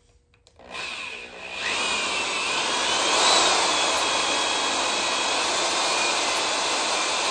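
Porter-Cable electric drill starting about a second in, speeding up and then running steadily with a high whine, turning a Kwik-Way portable valve seat cutter that is cutting into a Model A Ford engine block for an exhaust valve seat.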